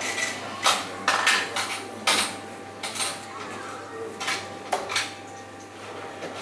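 Scattered sharp clicks and clinks in a room, with a steel-tipped dart thudding into a bristle dartboard between about four and five seconds in.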